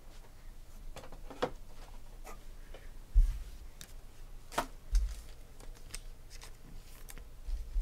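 2016 Panini Prizm football cards being handled and sorted: scattered crisp clicks and flicks of card stock, with a few low thumps about three seconds in, around five seconds and near the end.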